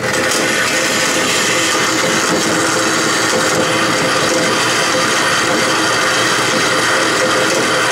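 Vertical metal-cutting bandsaw running and cutting through metal bar stock, a steady, even sawing noise with a faint steady hum under it.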